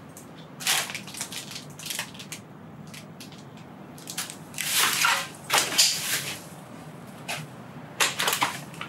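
Rubbish and debris crunching and rustling in irregular bursts, several of them, the loudest about five to six seconds in.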